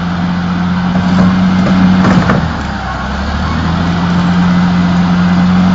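Diesel engine of a Caterpillar crawler excavator running hard as the operator tries to track the bogged machine out of mud and ice. The engine eases off for about a second after two seconds, with a brief clatter, then picks up again.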